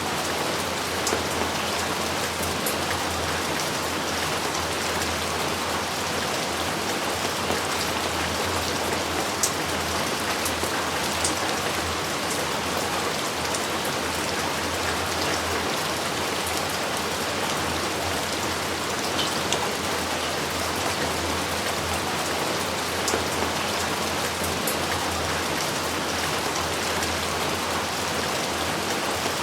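Steady heavy rain falling, an even hiss with scattered sharp ticks of single drops close by.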